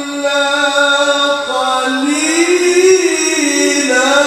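A man reciting the Quran in the melodic tilawah style into a microphone, holding one long drawn-out note. The pitch rises about two seconds in, wavers through ornaments, and sinks again near the end.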